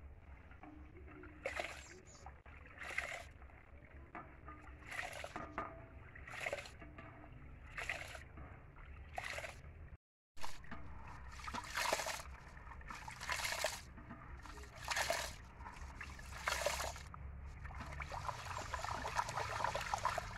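Hands washing rice in a metal pot of water: swishing, sloshing strokes about every second and a half, becoming quicker and more continuous near the end.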